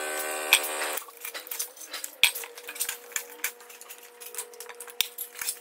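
A steady mechanical hum cuts off about a second in. After it come light, irregular metallic clicks and clinks of a hand tool and loose steel bolts being handled on the battery pack's metal modules and brackets.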